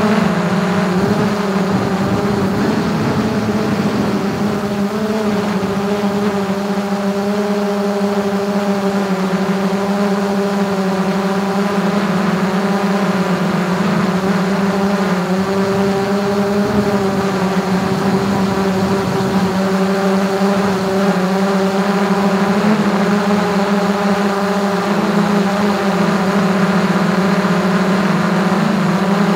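DJI Mavic 2 quadcopter's propellers buzzing steadily in flight, heard up close from a camera mounted on top of the drone. It is a loud, even hum whose pitch wavers only slightly as the drone flies.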